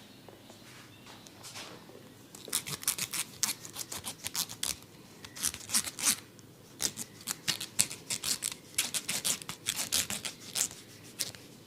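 Hair and scalp crackling under a barber's head massage: a quick, irregular run of sharp, crisp crackles and scratches that starts about two and a half seconds in.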